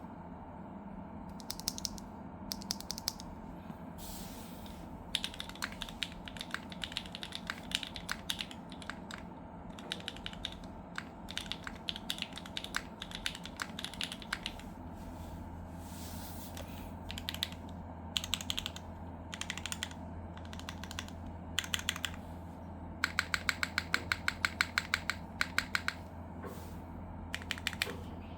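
Typing on a Krush65 mechanical keyboard with cleaned and lubed Gateron Summertime v2 switches, an aluminium plate without foam, an o-ring mount and GMK Arch keycaps. The keystrokes come in irregular bursts, with a fast run of keystrokes about two-thirds of the way through.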